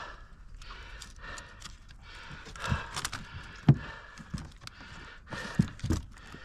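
Scattered clicks and knocks as a landed queenfish is handled on a boat deck, gripped with a lip-grip tool and unhooked with pliers.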